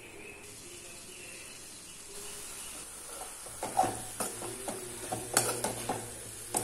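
Chopped banana flower and onion sizzling faintly in an open metal kadai. From about three and a half seconds in, a metal spoon stirs it, scraping and clicking against the pan.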